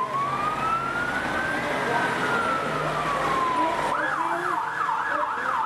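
Fire truck siren sounding one slow wail, rising and then falling back, then switching near the end to a fast yelp of about four sweeps a second.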